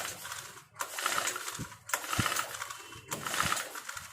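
Recoil pull-starter of an Aspee 4-stroke brush cutter pulled over and over, about once a second, the cord whirring and the starter ratcheting as the engine is cranked without firing. The spark plug is out in its cap, being tested for spark from a newly fitted ignition coil.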